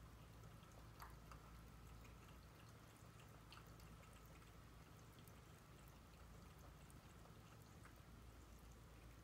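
Cat lapping water from a tall drinking tumbler: faint, irregular small wet clicks over a steady low hum.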